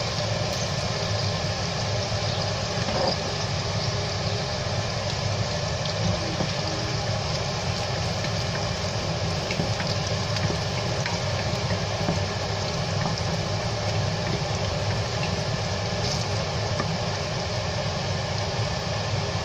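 A steady mechanical hum over garlic and green chillies frying gently in olive oil in a stainless steel pot.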